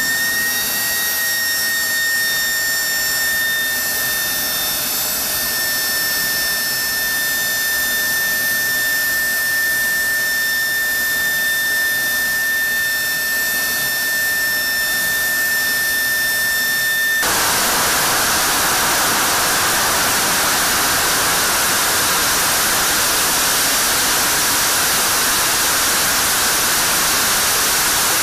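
Fighter jet turbofan engine running on a test stand with a steady high whine. About 17 seconds in, the whine gives way abruptly to a broad, dense roar as the afterburner lights.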